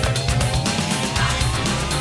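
Electronic theme music with a steady driving beat, under a rising synth sweep that climbs steadily in pitch.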